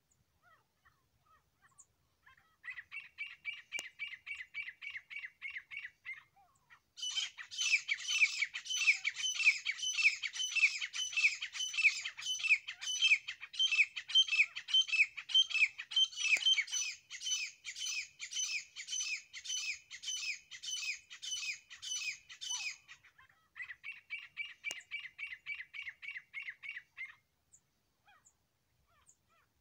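Grey francolin (grey partridge) calling. A soft, rapid run of notes leads into a loud series of repeated phrases, about two a second, lasting some fifteen seconds. A softer rapid run follows near the end.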